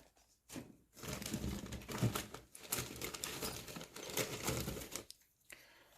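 Plastic packaging crinkling and rustling as model-kit parts are handled. It starts about a second in and stops about five seconds in.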